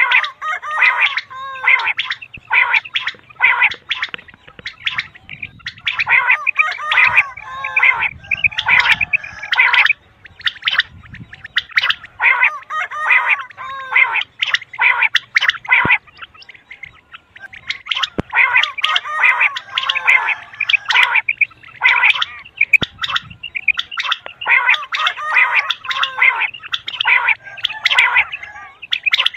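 Common quail (batair) calling over and over in fast runs of short, high, repeated notes, in bouts of a few seconds with brief breaks between them. It is a quail-calling track of the kind hunters play to lure quail into nets.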